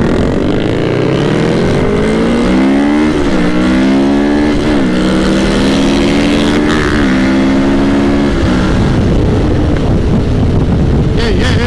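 Sport motorcycle engine accelerating hard, its pitch climbing and dropping briefly at each of three upshifts. The engine note fades at about eight seconds as the throttle closes, leaving wind rush.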